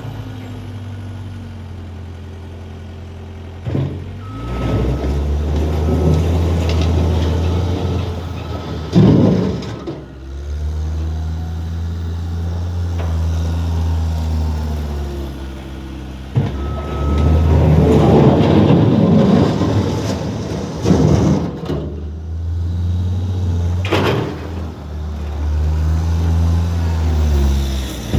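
Skid steer engine running, swelling louder in stretches as the machine works, with sharp clanks three times: near the middle, about two-thirds through and near the end.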